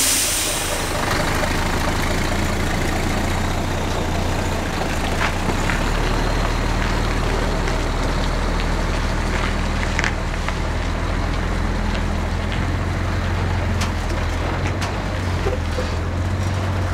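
Heavy articulated truck, a tractor unit pulling a container trailer, rolling slowly by with its diesel engine running at a steady low drone. A brief hiss sounds right at the start.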